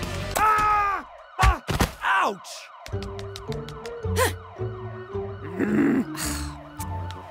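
Police siren warbling over background music, after a few short sweeping and hitting cartoon sound effects in the first two and a half seconds.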